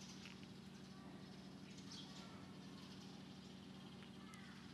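Near silence: a steady low hum with faint bird chirps in the background.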